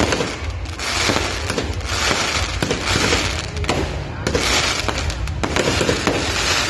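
Fireworks going off in quick succession: a continuous run of bangs and crackling from bursting shells.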